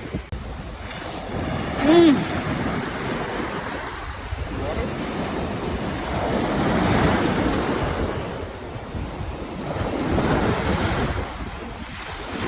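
Small waves breaking and washing up the shore, swelling twice, with wind buffeting the microphone. A brief voice sound comes about two seconds in.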